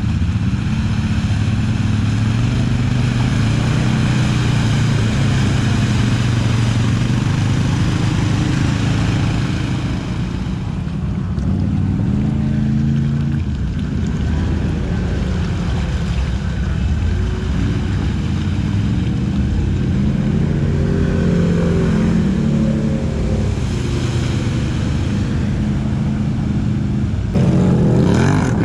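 Quad bike and off-road vehicle engines running and revving in a muddy track, the pitch rising and falling throughout. A louder engine comes in near the end.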